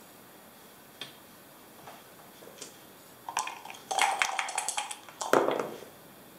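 A backgammon checker clicked down on the board, then dice rattled in a dice cup for about a second and a half, then thrown onto the board with a louder clatter a little after five seconds in.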